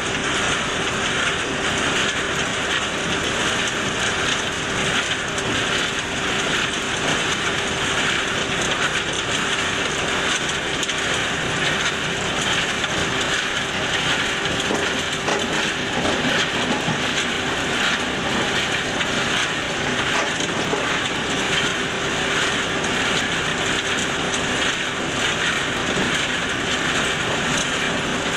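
Komplet DS 1020 compact trommel screen running: soil and stones rattling and tumbling through the spinning screen drum, a steady, dense clatter with a faint steady hum underneath.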